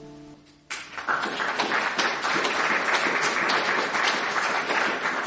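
The last acoustic guitar chord dies away, then an audience claps, the applause starting just under a second in and going on steadily.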